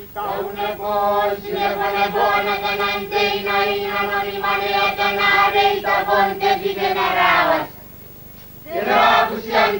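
Group of voices singing a traditional Kiribati chant together, holding one long chord for about seven seconds, breaking off, then starting a new phrase near the end.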